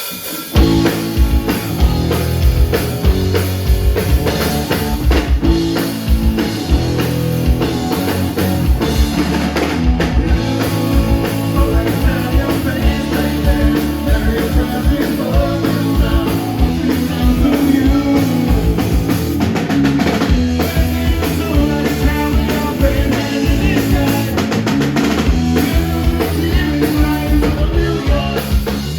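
Rock band playing a song live through the stage PA, with drum kit, bass and electric guitar, starting abruptly with the drums about half a second in and running steadily.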